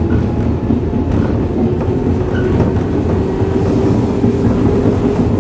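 JR East 113 series electric train running, heard inside motor car MoHa 113-1103: steady wheel-and-rail rumble, with a motor whine that rises slowly in pitch.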